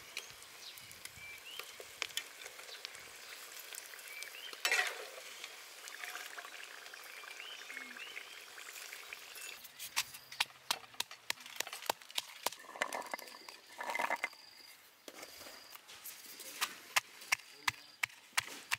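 Hot oil sizzling steadily as scorpions deep-fry, with a brief louder burst about five seconds in. From about halfway on, a run of sharp clicks and taps joins the sizzle.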